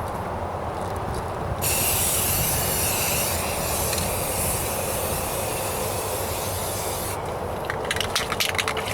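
Aerosol can of automotive primer spraying in one long hiss from about a second and a half in to about seven seconds, over steady wind buffeting the microphone. A run of quick clicks follows near the end.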